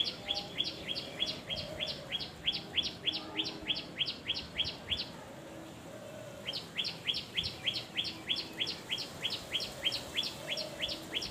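A bird calling in a fast run of sharp, downward-sliding chirps, about four a second. The calls come in two long series, with a pause of a second or two about five seconds in.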